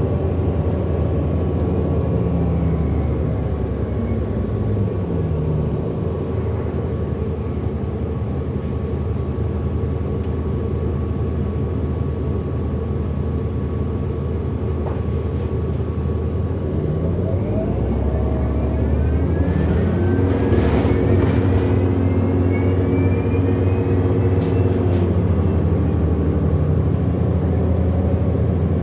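Hybrid-electric city bus heard from inside while riding: a steady drive drone with stacked motor tones that sink about a fifth of the way in, then climb with a high rising whine a little past halfway, and drop again near the end.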